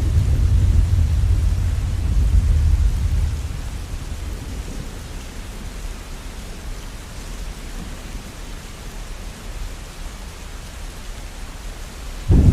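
Steady rainfall with thunder. A low rumble dies away over the first three seconds or so, leaving the even hiss of the rain, and a new loud rumble starts abruptly at the very end.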